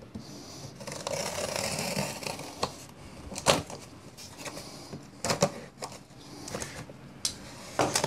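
Packing tape on a cardboard box being slit open with a Hinderer XM-18 pocketknife: a scratchy run of cutting about a second in, then scattered sharp clicks and knocks as the box is handled.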